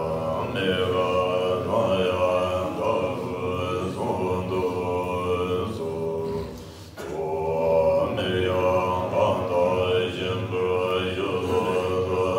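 Tibetan Buddhist mantra chanting: voices intoning a melodic prayer in long, sustained phrases, with a short break for breath about six and a half seconds in.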